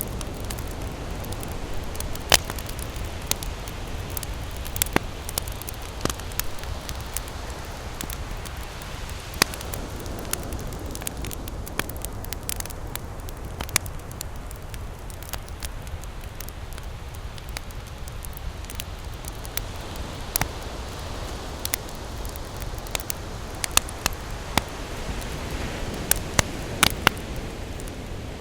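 Wood fire burning in a fireplace: a steady low rushing hiss of the flames, with irregular sharp crackles and pops from the burning logs.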